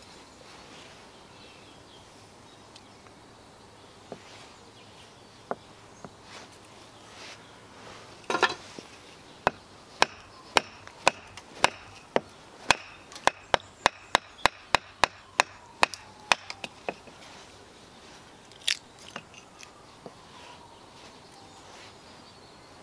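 Steel bushcraft multi-tool blade chopping and splitting small sticks of wood on a wooden chopping block. It gives a few scattered knocks, then a steady run of about fifteen sharp strikes at roughly two a second, then a single knock later on.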